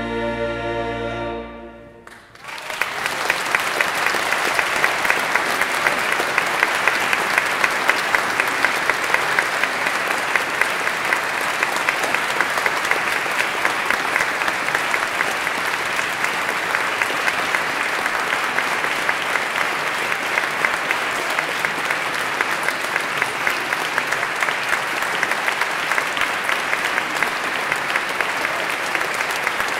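A choir and string orchestra hold the closing chord of the piece, which cuts off about two seconds in. After a brief hush, an audience applauds steadily.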